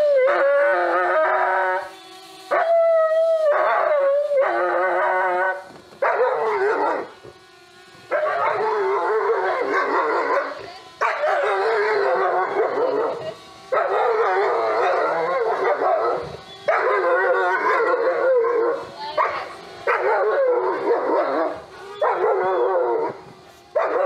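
German Shepherd howling in a long run of about a dozen drawn-out calls, each a second or two long with short breaks between them, some held steady and others wavering in pitch.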